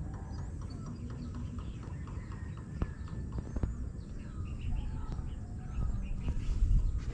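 Outdoor ambience: a low steady rumble with faint bird chirps and a couple of light knocks about three seconds in.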